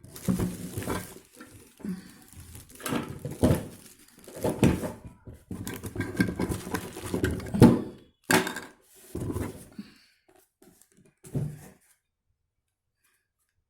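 Hard plastic vacuum cleaner parts being handled: irregular knocks, clatter and rubbing as pieces are picked up, turned over and fitted together, stopping near the end.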